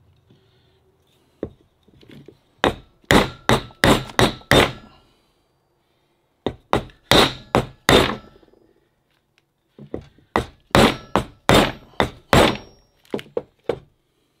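Hammer striking a wooden block laid on a bronze Sherwood raw water pump, driving the new shaft and bearings into the pump body. About twenty sharp blows come in three quick runs, a few a second, with short pauses between.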